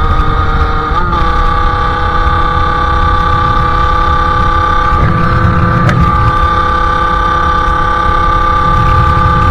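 Sherco SM-R 50's 50cc two-stroke engine, fitted with a KRM exhaust, running under way at fairly steady revs, with a small rise in pitch about a second in.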